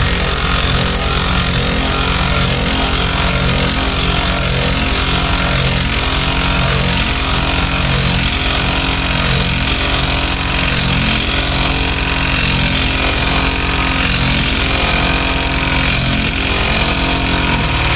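A motorhome's engine idling steadily.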